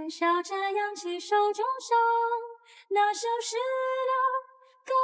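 Background music: a high voice singing a slow melody with long held, gliding notes, broken by two short pauses.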